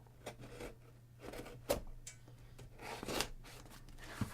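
Rustling and scraping of a shipping package being handled and opened, with a sharp click about a second and a half in and another near the end.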